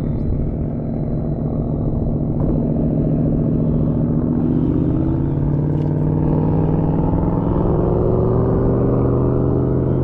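A motor running steadily, its pitch climbing slowly over several seconds, over a low rumble.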